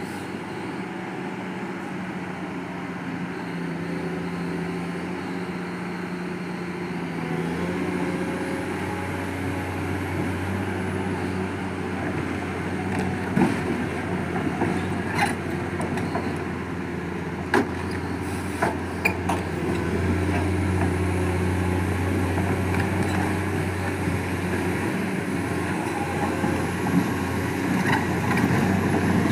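Excavator's diesel engine running steadily, its note shifting up a couple of times as the load changes, with a few sharp knocks midway.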